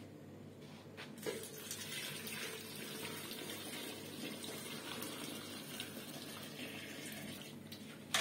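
Steady rush of running or pouring water, starting about a second in.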